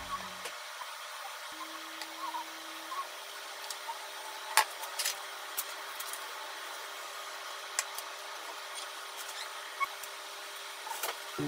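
Chopsticks and fingers packing cut chicken pieces into a stainless steel bento box: a few light clicks and taps on the metal, the sharpest about four and a half seconds in, over a steady hiss and a faint hum.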